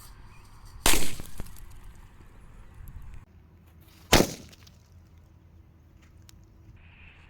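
Two KMM brand 4-inch 'one sound' firecrackers exploding, each a sharp, loud bang: one about a second in, the other about three seconds later.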